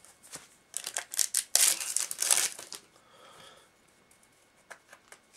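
A trading-card booster pack's foil wrapper crinkling and tearing open: a run of crackling rustles starting about a second in and lasting about two seconds, then a few light clicks near the end.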